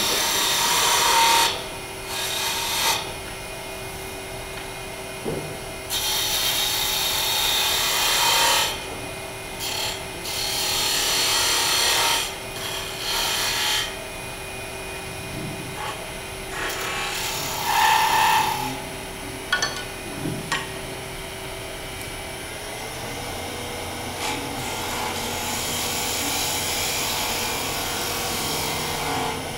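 Wood lathe running with a steady hum while a turning gouge cuts a spinning wooden spindle in a series of passes, each a rough shaving hiss lasting one to three seconds. About three-quarters of the way through, the lathe's hum steps up a little in pitch.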